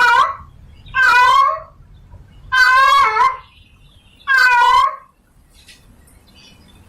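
Female cat in heat calling for a tom: three loud, drawn-out meows, each under a second, about a second and a half apart, with the tail of another at the start.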